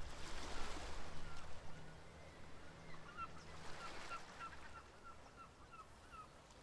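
A bird calling a quick run of short, falling notes, about three a second, over a soft wash of surf; everything fades out near the end.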